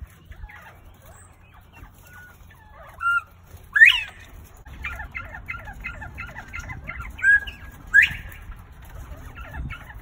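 Penned northern bobwhite quail calling: twice a short note is followed by a loud rising whistle, the bird's 'bob-white' call. Between the two calls come soft quick chirps at about four a second.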